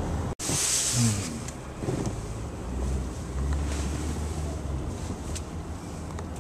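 Road noise inside a moving car's cabin: a steady low engine-and-tyre rumble with hiss. Right after a brief cut-out near the start, the hiss swells for about half a second.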